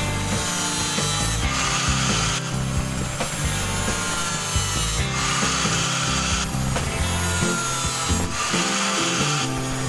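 Rasping, scraping strokes of a tool working the metal of a worn-out brush cutter blade, coming in repeated passes about a second or so long.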